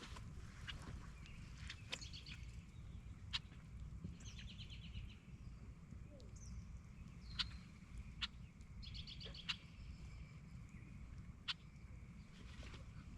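Birds calling at the lakeside: two short rapid trills of high repeated notes and scattered sharp high chips, over a steady low rumble.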